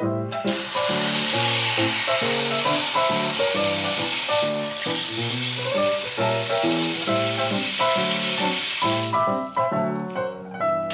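Cold tap water running in a steady stream into a stainless steel bowl holding an egg, starting about half a second in and stopping about a second before the end. Background music plays throughout.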